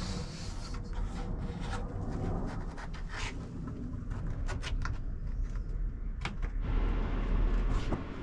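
Scattered knocks, clicks and rubbing of things being handled and set down, over a steady low rumble.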